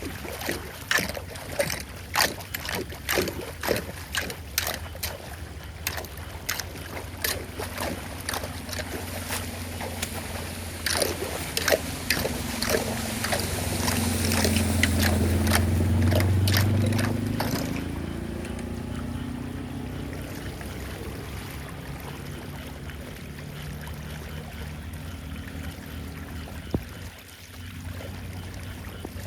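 Floodwater splashing and sloshing in quick irregular strokes, with a low rumble that swells for a few seconds about halfway through, then settles into a steady rush of water draining away.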